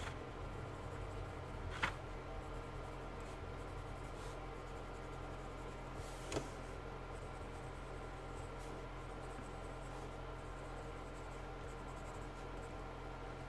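Faint scratching and dabbing of a white highlighting tool's tip on kraft paper as small highlights are added, over a steady room hum. Two light ticks sound, one about two seconds in and one about six seconds in.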